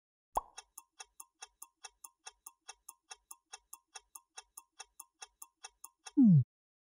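Clock-ticking countdown sound effect: rapid, even ticks, about five a second, marking the answer countdown. It ends with a short, loud tone that slides sharply downward in pitch.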